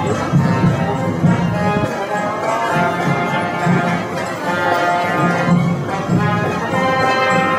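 Band music with brass instruments playing, its sustained notes shifting from chord to chord over pulsing low notes.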